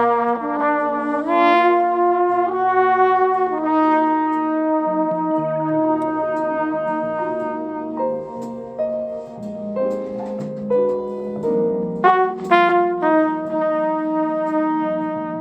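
Jazz trumpet playing a slow ballad melody in long held notes, with a short run of quicker notes a little past the middle, over a backing accompaniment with a walking bass line.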